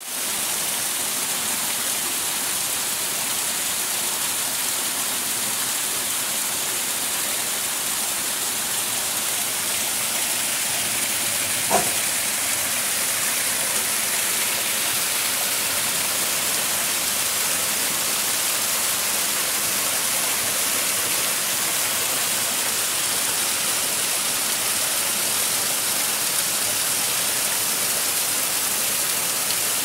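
Steady rush of water spilling over small limestone cascades of the Nartuby river into a pool, with one brief click about twelve seconds in.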